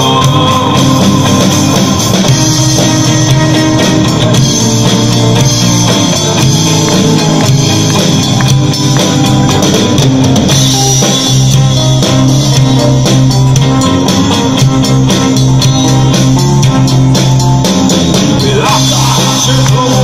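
A live band playing a song, guitars over a steady drum-kit beat.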